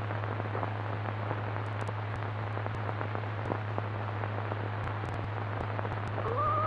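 Steady hiss and low hum of an old optical film soundtrack, with faint scattered crackles. Near the end a held musical tone slides up and sustains.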